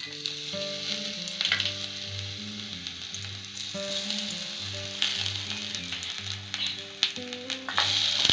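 Food frying in oil in a miniature pan: a steady sizzle with scattered sharp clicks.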